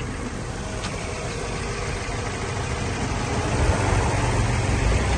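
A vehicle engine idling steadily, its low rumble growing louder over the last couple of seconds.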